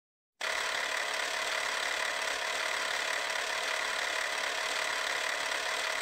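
Film-projector sound effect: a steady mechanical whirr that starts abruptly about half a second in and begins to fade out near the end.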